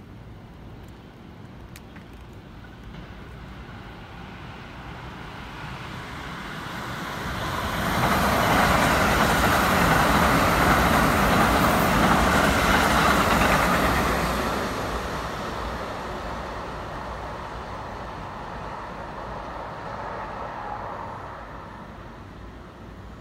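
Eight-car Keikyu 1000 series electric train passing close by. The rumble of wheels on rails builds from about six seconds in and is loudest for about six seconds as the train goes past, then fades away.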